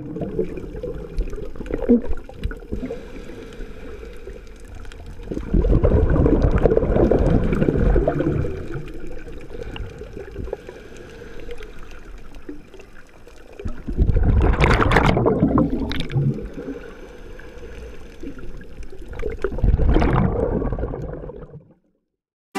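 Water bubbling and sloshing, heard underwater, swelling in three louder surges of a couple of seconds each.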